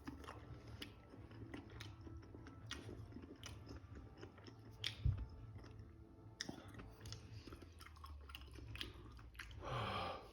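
Faint, close-up wet chewing of a sauce-drenched chicken wing: a string of small irregular smacking clicks. A louder breathy sound comes near the end.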